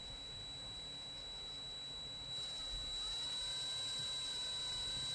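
Small electric motor running with a steady high whine. About two and a half seconds in it gets louder, with more hiss and a second tone that rises and then holds.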